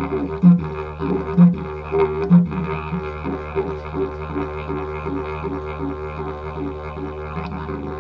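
Yidaki (Yolngu didgeridoo) playing a steady low drone with rhythmic overtone pulses. There are strong accented pulses about once a second for the first few seconds, then a quicker, even pattern of pulses.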